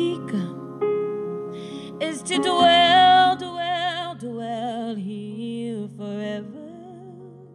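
A woman singing a slow worship song solo, holding wavering notes, over sustained keyboard chords.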